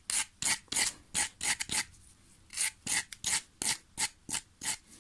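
Wire brush scrubbed back and forth over a chainsaw spark plug to clean it: quick rasping strokes, about three or four a second, with a short pause near the middle.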